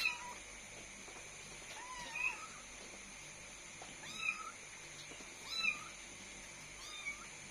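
Kittens mewing: about five short, wavering high-pitched mews, roughly one every second and a half.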